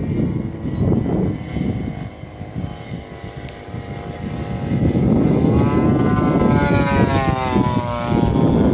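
Radio-controlled airplane's 50cc engine and propeller flying, quieter for a moment and then coming close, its pitch rising and then falling as it passes in the second half. A steady low rumble of wind on the microphone runs under it.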